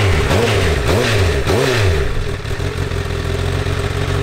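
2017 Honda CBR1000RR's inline-four engine, revved with a series of quick throttle blips over the first two seconds, then settling to a steady idle, heard through its exhaust before the SC-Project swap.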